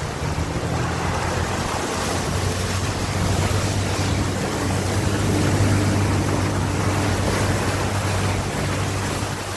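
Off-road vehicle driving through a shallow river: water rushing and splashing against the vehicle's side over a steady low engine drone, a little louder around the middle.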